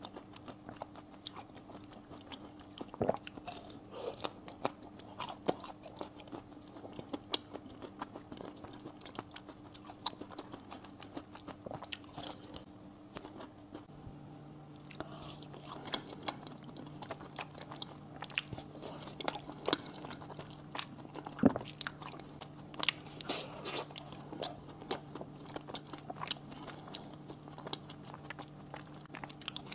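Close-miked biting and chewing of pink-coated ice cream bars, the hard coating crackling and crunching in many small snaps. One sharp bite stands out about two-thirds of the way through.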